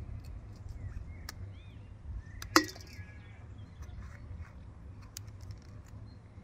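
A paring knife cutting into crisp red peppers with a few faint snaps. About two and a half seconds in, a piece of pepper lands in an enamel basin with one sharp, ringing clank. Birds chirp faintly over a steady low rumble.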